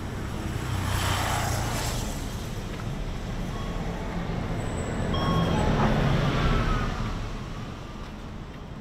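Road traffic on the street alongside: vehicles pass with engine rumble and tyre noise, one about a second in and a louder one around six seconds in. A few brief faint high squeaks come near the middle.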